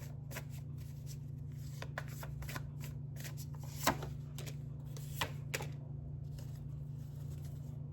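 Tarot cards being shuffled and handled: a run of quick light card snaps and flicks, with a few sharper ones around four and five seconds in, over a steady low hum.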